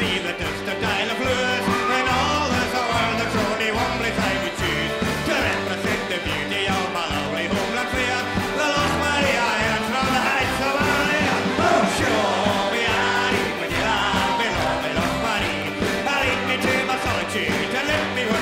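Live band music with a steady beat and a male lead voice singing into the microphone.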